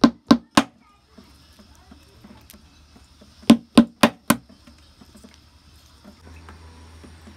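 Walnuts in their shells being cracked with blows from a metal pounder on a cloth-covered table. There are two sharp knocks at the start, then a quick run of four about three and a half seconds in, each about a quarter second apart.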